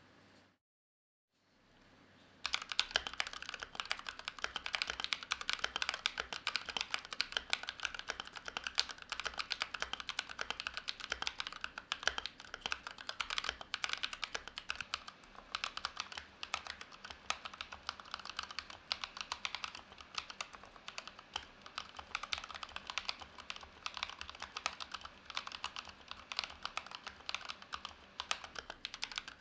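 Typing test on a GMMK Pro mechanical keyboard with a brass plate and Gazzew Boba U4T tactile switches: fast, continuous keystrokes that start about two seconds in.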